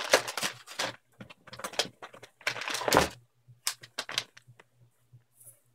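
A plastic dog-treat bag crinkling and rustling as it is handled, a run of irregular crackles with short pauses.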